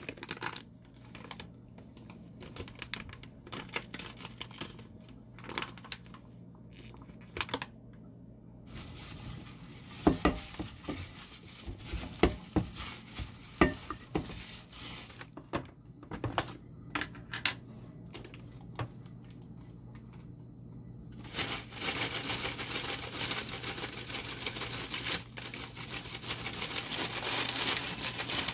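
Plastic-gloved hands kneading flour dough in a stainless steel bowl, the gloves crinkling, with a few sharp knocks against the bowl. From about two-thirds of the way in, chocolate Chex cereal pours from a plastic bag into a ceramic bowl in a dense steady rattle, the bag crinkling.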